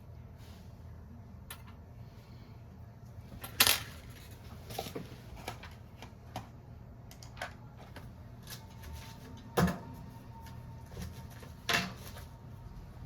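Small tools and phone parts clicking and knocking on a repair bench during a smartphone screen replacement: scattered sharp taps, three of them louder, over a steady low hum.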